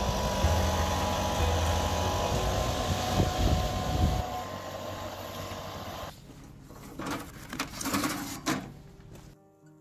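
Backpack leaf blower running at full blast, a loud steady rush of air over its engine's hum; it drops away about four seconds in. Fainter scattered noises follow.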